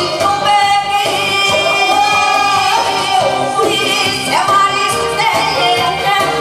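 A woman singing into a microphone over loud amplified backing music, her voice gliding between held notes.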